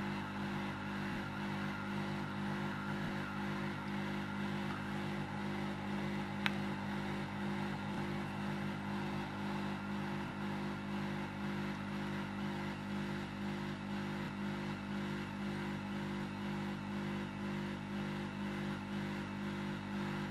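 Hot-air rework station running at half airflow: a steady blower hum with a hiss of air, heating a small part off a phone circuit board to desolder it. One brief click about six and a half seconds in.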